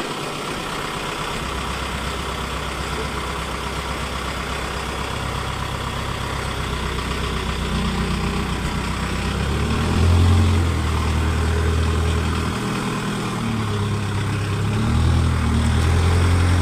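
Excavator's diesel engine running steadily, then revving up and down several times in the second half, getting louder as the pitch rises and dropping back between.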